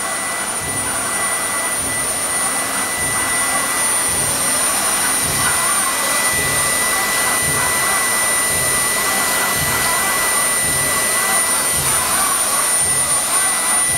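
High-speed spindle of a CNC foam milling machine with a swinging head, its cutter carving a block of EPS foam: a steady high-pitched whine over a continuous rushing hiss.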